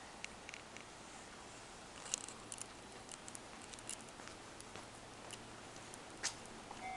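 Faint background hiss with scattered small clicks and ticks. Right at the end, a railway level-crossing warning bell starts ringing.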